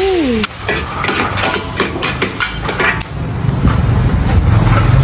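Metal spatulas clinking and scraping in a wok as steam sizzles off the stir-fry, then a low steady engine hum comes in about three and a half seconds in.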